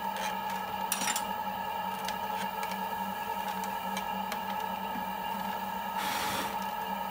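Electric potter's wheel running with a steady motor whine. A metal trimming tool scrapes briefly against the leather-hard clay about a second in, and there is a longer scrape near the end.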